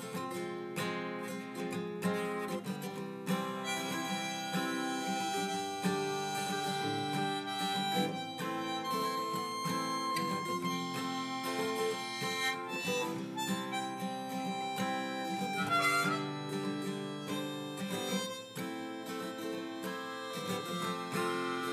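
Instrumental break of a folk-country song: a harmonica playing a melody of held notes over acoustic guitar accompaniment.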